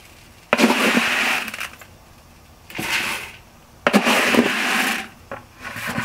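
Dry wheat berries poured into a grain mill's plastic hopper with a hissing rattle, in three pours of about a second each.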